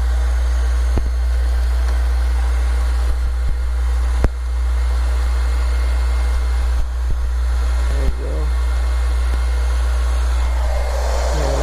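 A loud, steady low hum like a motor or engine running, with a few sharp clicks and faint voices in the background.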